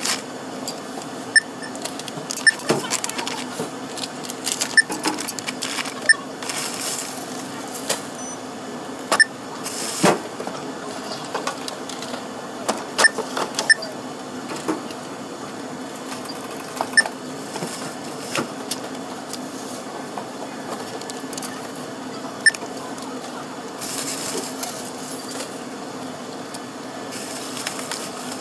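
Store checkout: a barcode scanner beeping at irregular intervals as items are scanned one at a time, with clunks and rustles of the items being handled and bagged.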